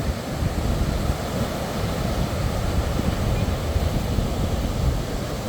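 Sea surf washing in on a beach, a continuous rushing noise, with wind buffeting the microphone in a low rumble.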